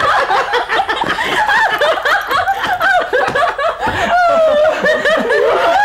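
Several people laughing loudly together, their laughs overlapping without a break.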